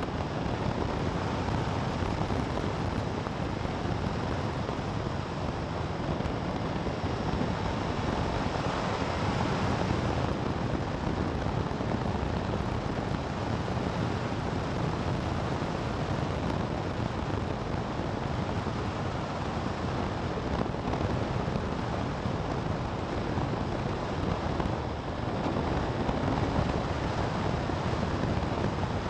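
Steady rush of wind on the microphone of a camera riding a moving vehicle at road speed, with the vehicle's running noise underneath.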